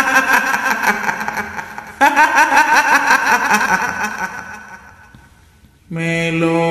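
A kuntilanak ghost-voice effect: a high-pitched woman's cackling laugh in two rapid pulsing bursts, the second starting suddenly about two seconds in and fading away. It is followed by a droning chanted voice near the end.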